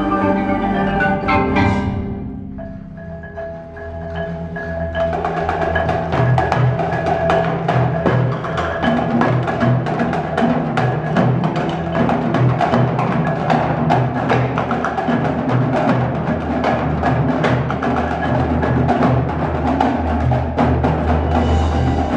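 Percussion ensemble playing: marimbas and other mallet percussion over drums and a sustained low bass. The music thins out about two seconds in and builds back to dense, rapid mallet playing from about five seconds.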